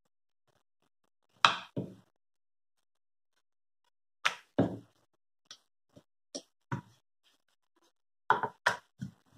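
Irregular wooden knocks and taps of a rolling pin and dough on a wooden rolling board as a thin ragi roti is rolled out, lifted and turned: about a dozen short knocks in small clusters, the loudest about a second and a half in.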